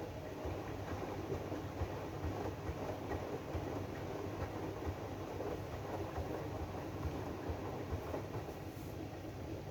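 AEG washing machine running its drum-clean cycle: a steady churning noise from the turning drum, with irregular low knocks and rumble.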